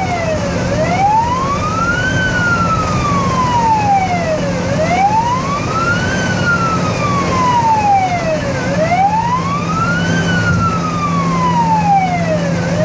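Ambulance siren in a slow wail, rising and falling in pitch about every four seconds, heard from inside a vehicle's cab over a steady low hum.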